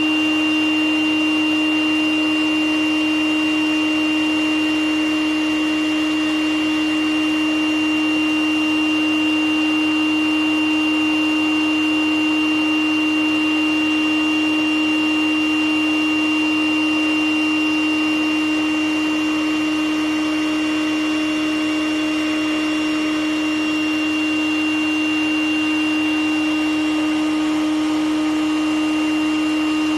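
Vacuum running steadily, with a strong hum and a high whine, while it sucks sediment and gunk out of a clogged heat pump condensate drain line.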